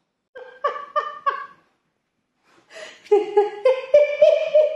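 A person laughing: three or four short bursts of laughter, then after a pause a longer, higher-pitched run of laughter.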